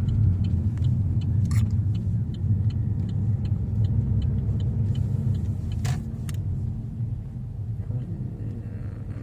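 Car on the move: a steady low engine and road rumble, easing slightly near the end, with a couple of sharp clicks.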